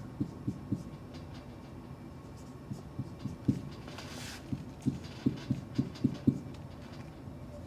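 Marker writing on a whiteboard: irregular soft taps of the felt tip against the board as letters are formed, with one longer hissing stroke about four seconds in.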